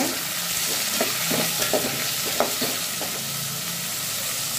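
Chopped onions and tomatoes sizzling in hot oil in a metal pot while a metal spoon stirs them, with a few short scrapes of the spoon against the pot between about one and two and a half seconds in.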